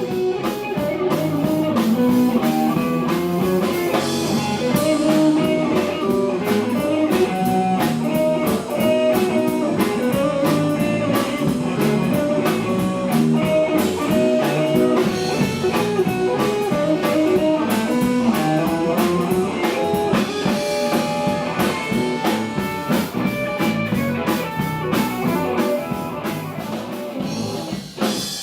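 Live blues-rock band playing: guitar lines over a steady drum kit beat.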